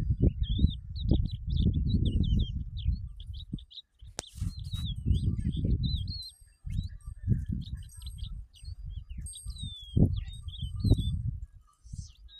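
Small birds chirping and trilling in quick, high, repeated calls, over a louder low rumble that rises and falls in gusts, with one sharp click about four seconds in.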